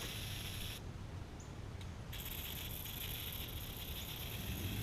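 Degreaser being sprayed onto an engine block: an even hiss that stops a little under a second in and starts again about two seconds in, running on past the end.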